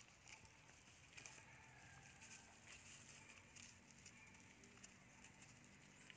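Near silence: faint outdoor ambience with a few soft scattered clicks and rustles.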